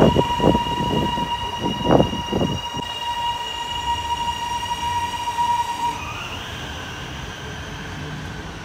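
A Metro Trains Melbourne High Capacity Metro Train running past, its electric traction drive giving a steady whine with low thumps from the running gear in the first three seconds. About six seconds in the whine cuts off and a fainter, rising whine follows.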